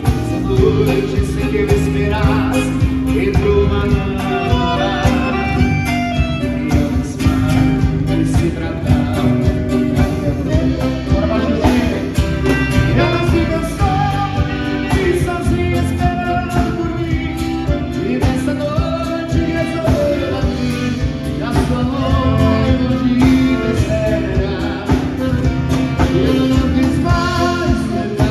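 Music: a song with a singing voice over a full band with a steady beat.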